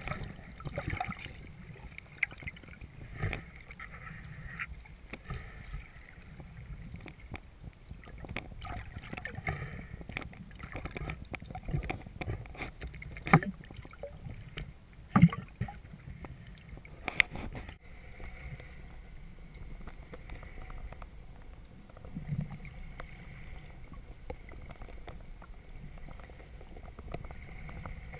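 Muffled underwater sound picked up through a camera's waterproof housing: a low rumble of moving water with scattered clicks and knocks, the loudest a few sharp knocks in the middle. A faint steady hum runs through the latter part.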